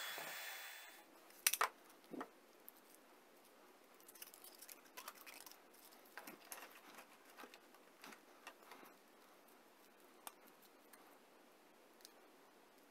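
A cordless heat gun blowing with a steady hiss and a thin whine, which dies away about a second in. Then two sharp knocks, followed by faint scattered clicks and rustles of a plastic band being worked around a wooden strip by gloved hands.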